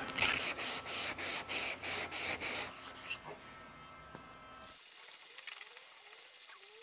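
Sandpaper (180-grit 3M Cubitron II) rasping in quick, even strokes, about four a second, for the first three seconds. After that there is only faint rubbing as a hand sanding block is worked over glazing putty on a truck hood.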